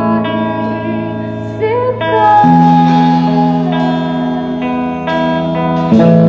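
A live band playing a song: a woman singing over electric guitars, drums and keyboard, with cymbal crashes. The chord changes about two and a half seconds in and again near the end.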